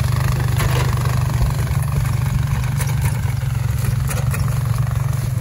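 ATV engine running steadily at low speed while towing a wrecked riding lawn mower, with a few brief crunches over it.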